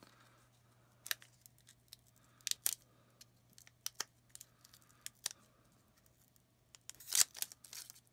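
Foil wrapper of an Upper Deck Series 1 hockey card pack being handled and opened: scattered short, sharp crinkles, then a louder flurry of crinkling about seven seconds in.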